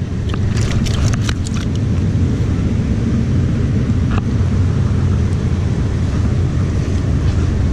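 Steady low rumble of wind buffeting the camera microphone, with a few light clicks about a second in.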